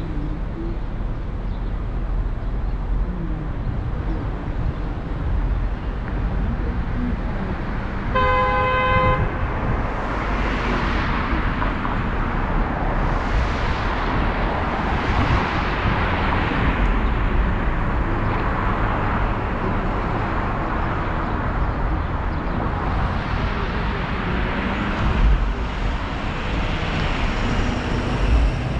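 A car driving on city streets: steady engine and road rumble, with a car horn giving one steady blast about a second long about eight seconds in. After it, hissing tyre and wind noise swells and fades several times.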